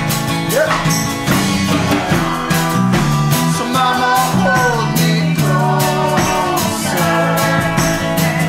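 Instrumental passage of a song with a steady beat, and a lead line that slides up and down in pitch.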